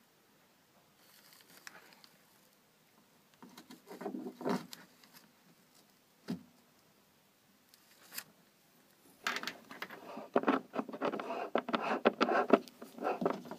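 Close handling noise from a black plastic barbed hose fitting being worked into a hole in a Sea-Doo hull by hand. A few scrapes and a single knock come first, then a few seconds of steady rubbing and scraping in the second half.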